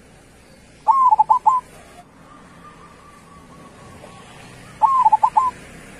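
Zebra dove (perkutut) singing its cooing song twice, about four seconds apart: each phrase opens with a long note and breaks into a quick run of short, clipped coos.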